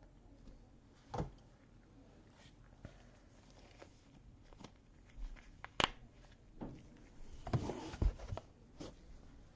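Scattered small clicks and knocks of handling on a tabletop, with a sharp click about six seconds in and a short patch of rustling and thumps shortly after.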